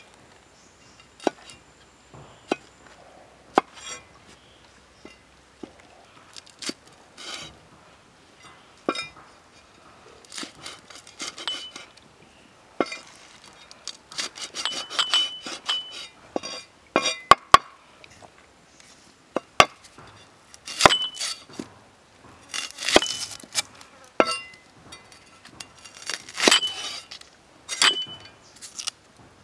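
A cleaver chopping chillies and garlic on a round wooden chopping block: scattered single knocks and several quick runs of chops, some with a short high metallic ring from the blade.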